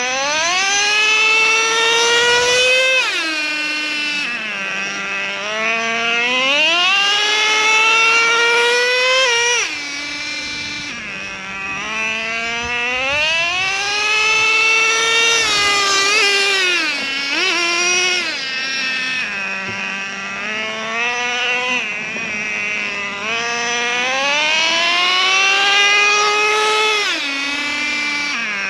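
Traxxas Revo 3.3's two-stroke nitro engine, new and being broken in, running loud. It winds up in a slowly rising whine over several seconds and then drops back to idle, about four times.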